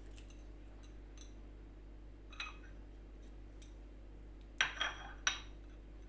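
Light clicks and knocks of eggshell and kitchenware as an egg yolk is separated from the white, with a sharper knock midway and a cluster of three louder clicks near the end, over a steady low hum.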